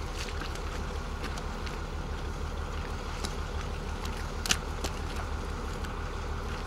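A diesel engine running steadily at a low idle, with a few light clicks and one sharp knock about two-thirds of the way through.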